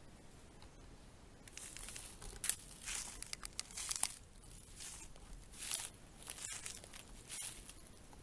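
Footsteps through dry fallen leaves: a run of short, crisp rustles at walking pace, starting about a second and a half in.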